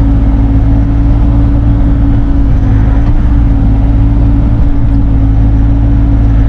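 Bobcat E42 mini excavator's diesel engine running at a steady, even pitch, heard from inside the cab while the boom and bucket dig soil.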